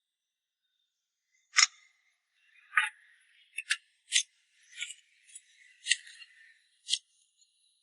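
A series of light, sharp clinks and clicks, about eight at irregular spacing over six seconds, like small hard objects being handled and knocked together.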